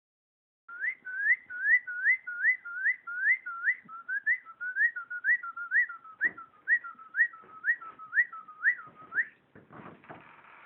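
Cockatiel whistling a quick run of short rising notes, about two or three a second, stopping about nine seconds in, followed by a brief rustling near the end.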